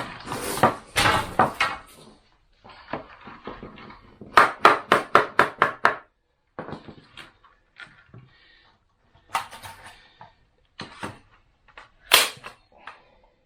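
Staple gun snapping staples through chicken wire into a wooden frame: sharp clicks, including a quick run of about eight a few seconds in, with quieter handling noise of the wire between.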